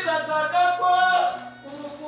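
A man singing live to acoustic guitar accompaniment, the voice coming in at the start with long, sliding notes.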